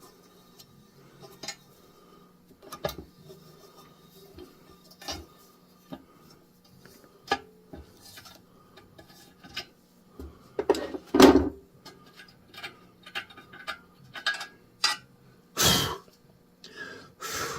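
Metal clicks and clinks from a thread tap being turned by hand into a damaged hole in a cast engine block, with louder scraping a little past halfway and again near the end.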